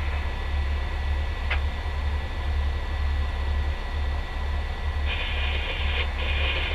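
Fire truck's diesel engine idling, a steady low rumble heard inside the cab. A single click about a second and a half in, and a hiss near the end.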